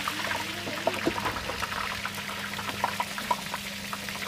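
Hot oil in a turkey fryer pot bubbling and crackling as a turkey is lowered in: a steady hiss dotted with many sharp pops, over a steady low hum.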